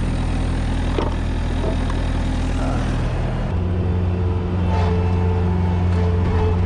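Skid steer engine running steadily, then coming up to higher revs about three and a half seconds in, with a steady higher whine joining about a second later as the machine works.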